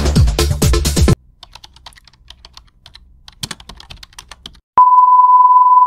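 Electronic background music cuts off abruptly about a second in. Faint, irregular clicking follows, and near the end a loud, steady, high-pitched beep tone starts.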